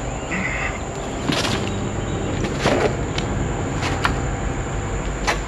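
Footfalls knocking on a rusted steel staircase during a climb, four knocks about a second and a half apart, over a steady low rumble of wind and handling noise.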